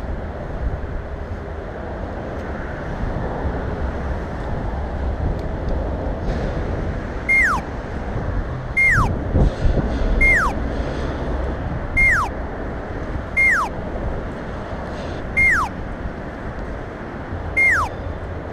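Outdoor urban background of low traffic rumble and wind noise. From about seven seconds in, a short falling whistle repeats seven times, roughly every one and a half seconds.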